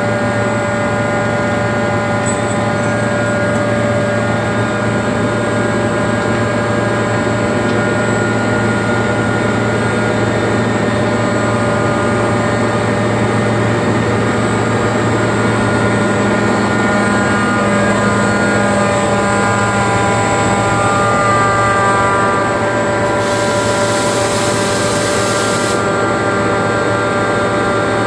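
Airking screw air compressor running steadily, with a loud low hum and several steady whining tones. Near the end a hiss lasting about three seconds sounds over it.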